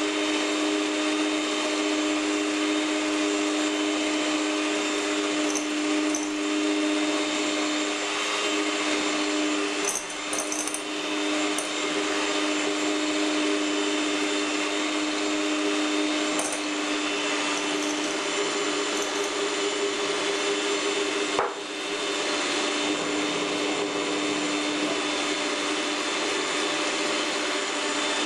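Electric hand mixer running steadily at speed, its beaters whisking egg whites with sugar into a stiff white foam in a glass bowl. There is a brief dip in the sound about ten seconds in and a single short knock about two-thirds of the way through.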